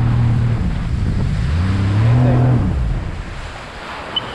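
Sea-Doo GTI 130 jet ski's Rotax 4-TEC four-stroke engine running under throttle with water rushing past. The throttle eases off, revs up again for about a second around two seconds in, then drops back to a low run as the craft slows. Two short high beeps near the end.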